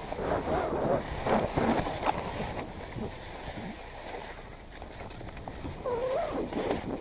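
Skis scraping and sliding over packed snow, loudest in the first couple of seconds.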